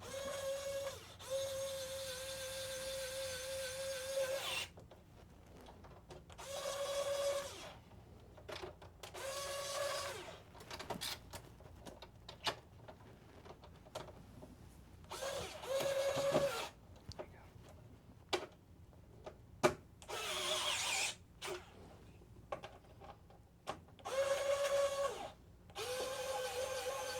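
Small electric screwdriver running in about seven short runs of one to four seconds each, a steady whine every time, driving screws into the PS5's casing and internal parts during reassembly.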